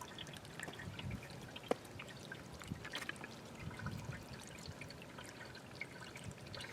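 Water from a small solar-pumped fountain trickling and splashing into stacked terracotta saucers, with many small drips.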